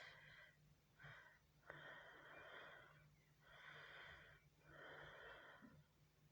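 Faint breathing, a series of four soft, hissy breaths about a second long each with short pauses between them.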